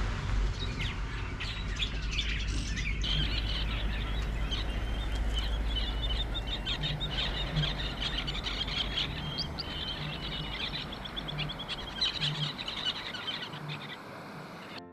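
Many birds chirping in quick, short calls over a low steady rumble, fading near the end.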